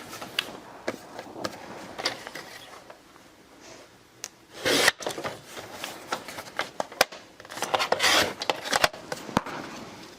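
A paper cut-apart card being trimmed and handled on a craft table: scattered light clicks and taps, with two brief cutting or scraping strokes about five seconds in and again near eight seconds.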